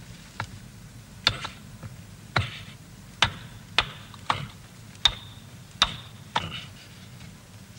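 Hammer driving a chisel into a wall: about nine sharp metal-on-metal blows at an uneven pace of roughly one every half second to second, several with a brief ringing.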